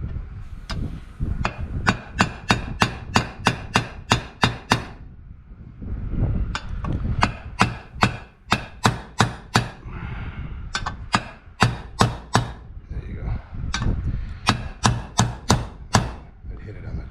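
Quick hammer taps, about four a second, in four runs of several seconds with short pauses between them, driving a part home in the engine's crankcase half during the bottom-end rebuild.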